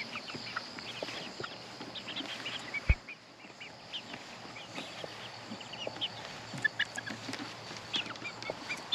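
A flock of young chickens peeping and cheeping while foraging in grass: many short, high calls scattered throughout. A single dull thump sounds about three seconds in.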